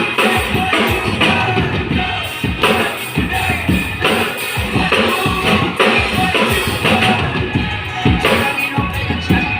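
Drum kit played with steady, rapid strokes on kick, snare and cymbals, over accompanying backing music.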